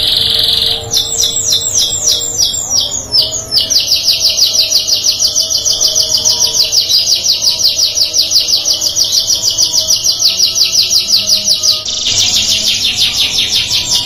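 Domestic canary singing: a high continuous roll, then quick varied phrases, then a long fast trill of evenly repeated notes at about five or six a second, switching to another dense roll near the end.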